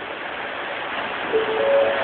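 Yurikamome rubber-tyred automated guideway train rolling in along the platform, a steady rushing that grows louder. Past halfway an electronic chime starts, several notes one after another, each higher than the last.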